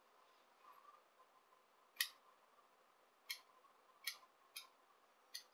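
Small grooming scissors snipping mustache hairs along the lip line: five short, sharp snips at uneven intervals, starting about two seconds in, the first the loudest.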